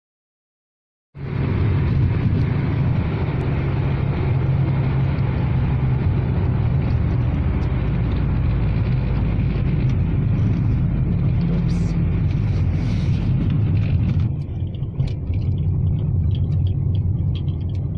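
Steady road noise inside a moving car's cabin: a low rumble of tyres and engine, starting about a second in. The higher hiss above it drops away a few seconds before the end.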